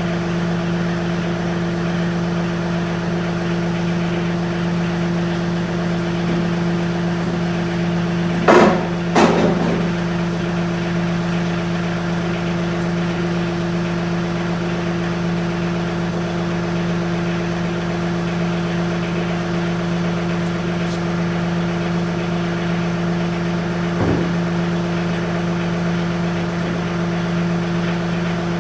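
John Deere tractor engine running at a steady speed, with two loud clunks about a third of the way in and a lighter knock later on.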